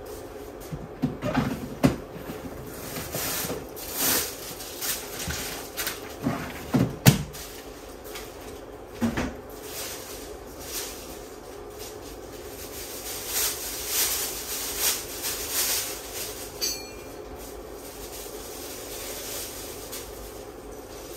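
Cats scratching and clambering on a scratching house. A few sharp knocks and thumps come in the first ten seconds, the loudest about seven seconds in, and bouts of rasping scratching follow later.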